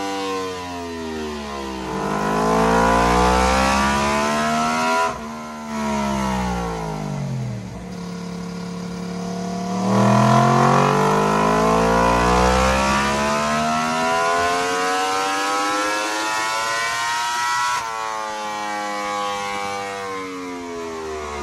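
Yamaha R1's crossplane inline-four revving hard on a chassis dyno. A short climb in revs cuts off sharply about five seconds in and winds down, then a long, steady climb through the rev range runs for about eight seconds before the throttle shuts and the revs fall away.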